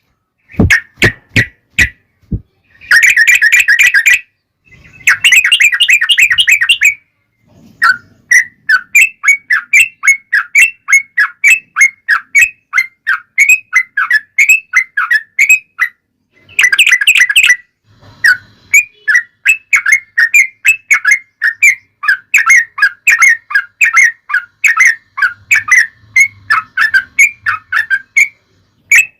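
Yellow-vented bulbul (trucukan) calling: a fast run of short chirping notes, about three a second, broken by a few bursts of dense, harsh chattering.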